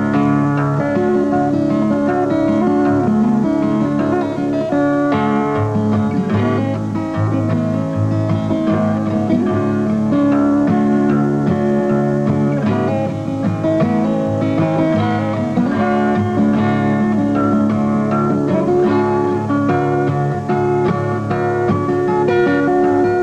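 Instrumental music led by a plucked guitar, its notes following one another continuously over lower sustained tones.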